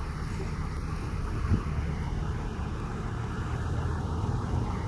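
Steady low rumble of a motor vehicle running, with one brief thump about a second and a half in.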